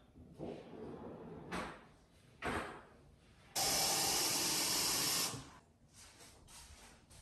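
Kitchen tap running into a drinking glass, a steady hiss of water for about two seconds as the glass fills, then shut off. Two short knocks come before it.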